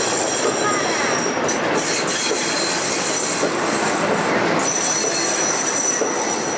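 Old passenger coaches of a departing train rolling slowly past, their wheels squealing on the rails in high thin tones that start and stop several times over a steady rolling rumble.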